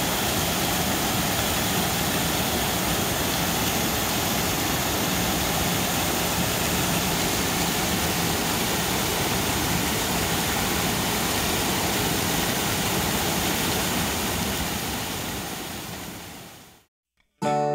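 Steady rush of water pouring over a waterfall, fading out near the end, with music starting just as it ends.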